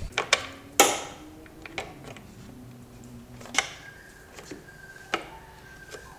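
Engine cover being refitted over the engine: a few scattered clicks and knocks, the loudest about a second in.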